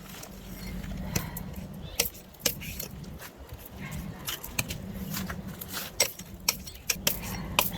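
An axe chopping bark and outer wood off a log: sharp knocks at irregular intervals, a few of them in quick pairs, some with a light clatter.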